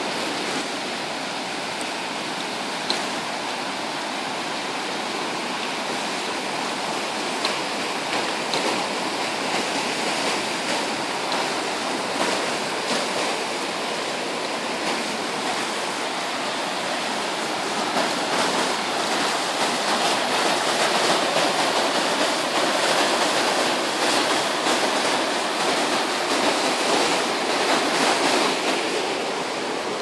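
A river swollen after rain, rushing over rocks in white-water rapids: a steady, loud rush of water that grows louder in the second half and eases near the end.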